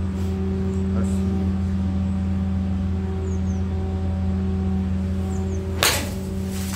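A golf club strikes a ball off a practice mat once, a single sharp crack near the end, over a steady low mechanical hum.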